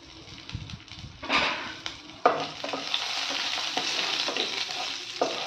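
Nigella seeds and green and dried red chillies frying in hot oil in a kadai as a tempering, stirred with a wooden spatula. The sizzle is quieter at first, then jumps up about two seconds in and runs on as a steady hiss with the scrape of the spatula.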